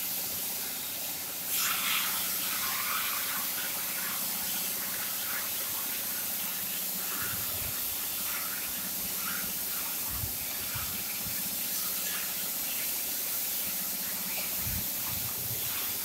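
Steady hiss of a CNC profile cutter's cutting torch at work, growing louder about a second and a half in and then holding steady.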